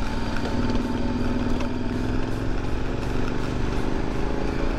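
KTM adventure motorcycle's engine running under way, its note climbing slowly, over low wind rumble.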